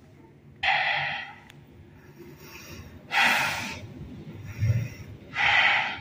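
A person breathing heavily close to the microphone: three loud, breathy puffs about two and a half seconds apart, over the faint low hum of the elevator car travelling up.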